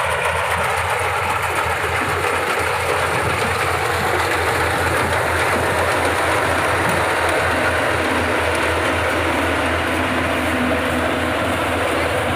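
Yanmar AW 70GV combine harvester running steadily under load, a dense even machine noise with a fast, even low throb from the engine.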